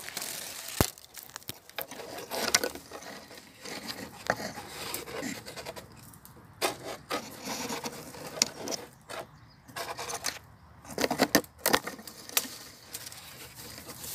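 Irregular rustling and scraping with scattered sharp clicks and light knocks.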